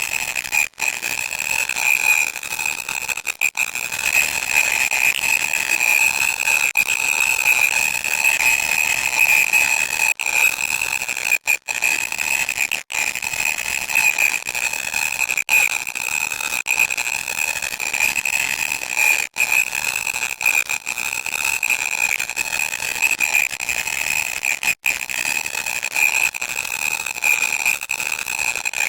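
Loud, harsh electronic static with a steady shrill whine running through it, cut by short dropouts every few seconds.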